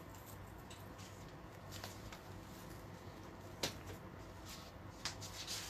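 Quiet room with a few light clicks and handling noises as a handbag is put away, the sharpest click about three and a half seconds in.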